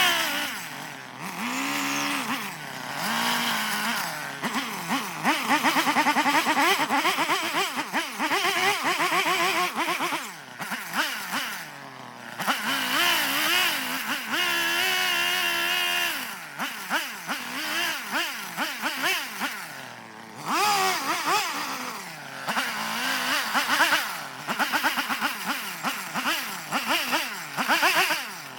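Petrol chainsaw carving into a block of eastern red cedar, its engine speed rising and falling continually as the throttle is worked through the cuts, easing off briefly a few times.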